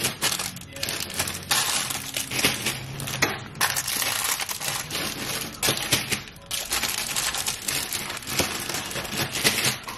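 Crinkling and rustling of a heap of plastic-wrapped fun-size candy bars being stirred and scooped by hand, with plastic bags rustling as they are filled.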